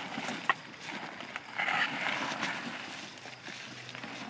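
Loaded wooden handcart rolling over rocks and gravel: irregular crunching and knocking from its wheels and the footsteps of the man pulling it, with one sharp knock about half a second in.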